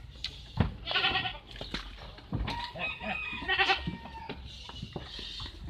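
Goats bleating in a crowded holding pen, several short calls, with a few sharp knocks in between.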